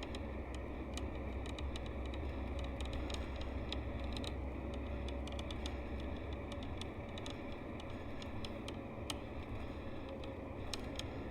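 Mercedes-Benz O-400RSD coach's diesel engine running with a steady low rumble that eases slightly about seven seconds in, along with scattered light rattles and ticks.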